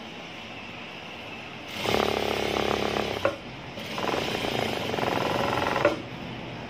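Jack industrial sewing machine stitching a seam through saree fabric in two short runs, each with a fast, even needle clatter, the second starting shortly after the first stops.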